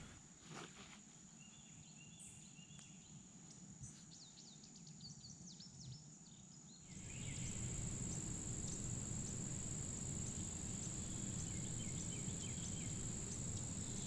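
Faint woodland morning ambience: small birds chirping in short calls, over a steady high insect trill such as crickets. About seven seconds in, the trill and a low hiss become louder.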